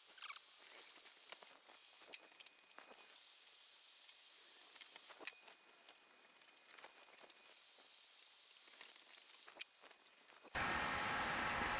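Faint steady hiss that dips several times, with a few light clicks. Near the end it cuts suddenly to a louder, lower, even noise.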